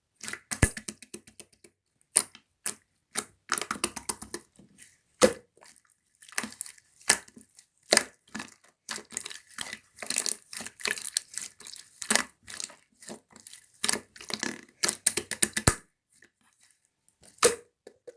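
Slime being squished, pressed and stretched by hand, making irregular crackling, popping and squelching clicks. The sounds come in quick clusters, thin out near the end, and a single last pop follows.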